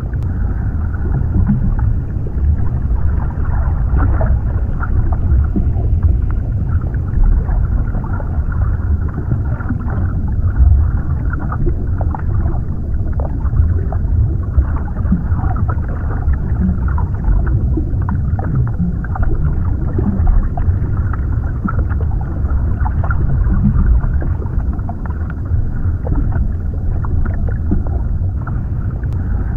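Underwater ambience: a steady, muffled low rumble of water with scattered short pops throughout.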